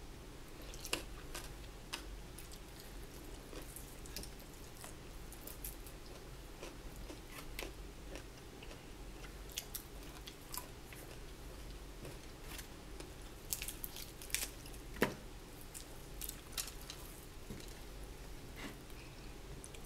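Close-up chewing and biting on fried chicken, with scattered sharp clicks throughout and the loudest bite about fifteen seconds in.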